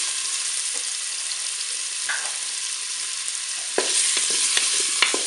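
Beef meatballs sizzling in melted butter in the non-stick bowl of a Cookeo multicooker on its browning setting. From about four seconds in, a wooden spoon turns them, with light knocks against the bowl, and the sizzle gets louder.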